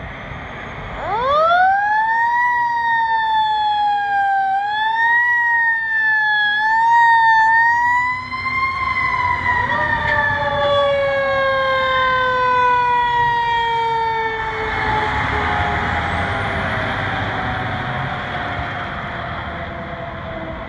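Fire truck siren winding up sharply about a second in, its pitch wavering up and down as it is held, then winding slowly down through the rest, in the way a mechanical coaster siren does. A second, lower siren tone joins around ten seconds in, and a rush of truck noise comes in about two-thirds of the way through as the rigs pass.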